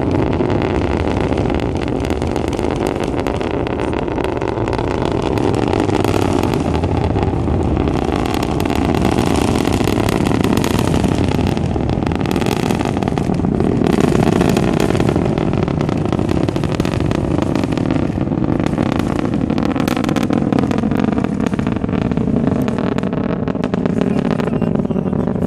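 Rocket engines roaring through liftoff and the climb, heard from far off: a loud, steady rumble with a ragged crackle running through it. In the second half a hollow, slowly falling sweep rides on the rumble as the rocket rises.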